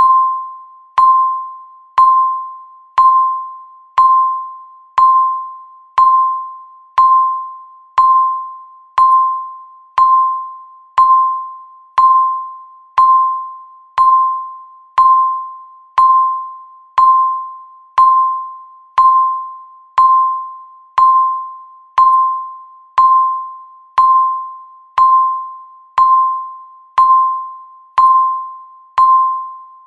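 Electronic countdown timer beeping once a second: a single bell-like tone near 1 kHz, each beep striking sharply and fading out before the next.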